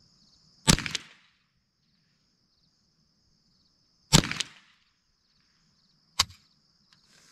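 Ruger 10/22 .22 LR rifle fired three times, a few seconds apart, the last shot shorter and quieter, over a steady high chirring of crickets.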